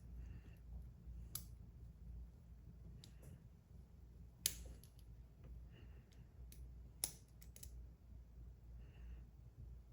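Small metal tools clicking and tapping against the parts of a Kwikset SmartKey lock being taken apart: a few sharp, separate clicks, the loudest about four and a half seconds in, with fainter ticks and light scraping between them.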